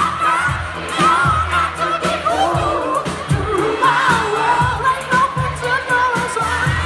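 Live yacht rock band playing: a lead vocal sings over electric guitars, keyboards and a steady drum beat, with the crowd faintly audible.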